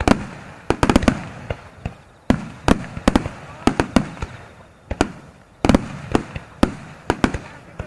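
Aerial firework shells bursting in a rapid finale barrage: many sharp bangs at irregular intervals, some in tight clusters about a second in and again around three and five-and-a-half seconds, each trailing off in a short rumbling echo.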